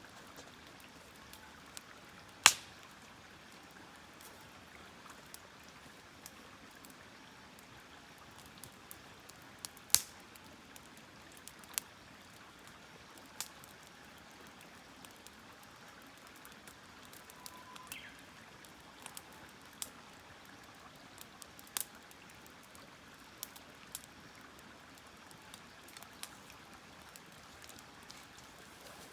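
Wood campfire crackling: scattered sharp pops and snaps over a low steady hiss, with a loud pop a couple of seconds in and another about ten seconds in.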